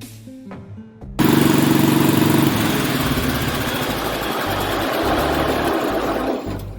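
Poulan riding lawn mower engine running under way in a high gear, cutting in loudly about a second in over background music, with a pitched hum at first, then a steadier noise that drops away near the end.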